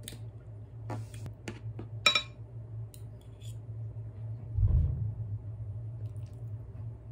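Metal spoon and chopsticks clinking against a ceramic dish a few times, the sharpest clink ringing briefly about two seconds in, then a soft low thud, over a steady low hum.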